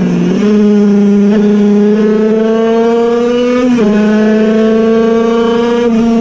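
Air-cooled, piston-port 50cc two-stroke engine of a Puch Cobra race moped at high revs on the ride, heard from on board. Its pitch climbs steadily, drops sharply a little under four seconds in as it shifts up a gear, then climbs again.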